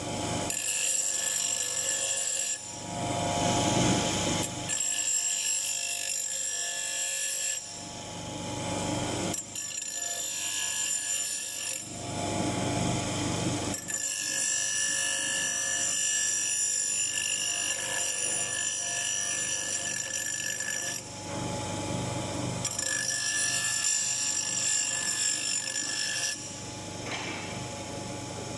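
Bench grinder's abrasive wheel grinding an iron piece in repeated passes, a steady motor whine under the louder grinding. Near the end the iron is lifted away and the wheel runs free, quieter.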